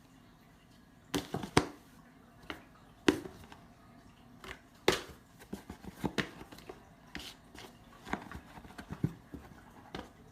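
A series of sharp knocks and taps at uneven intervals, loudest about a second in, about three seconds in and about five seconds in, in a small room.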